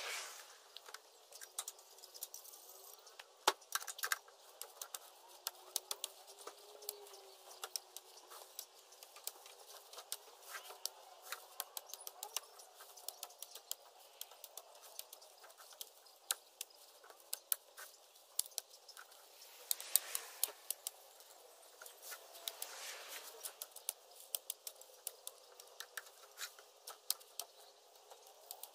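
Green tree branches being handled and packed down: twigs cracking and snapping irregularly, several times a second at the busiest, with leaves rustling and two longer rustles of foliage about two-thirds of the way through. The sound is faint overall.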